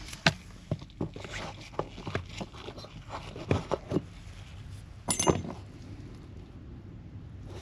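Handling noises from gloved hands working wiring through a floor plug: scattered clicks, taps and rustles, with a louder clatter about five seconds in.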